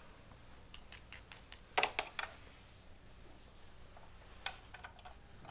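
Light clicks and taps of hard plastic toys being handled: a quick run of scattered clicks in the first two seconds, then a few more near the end.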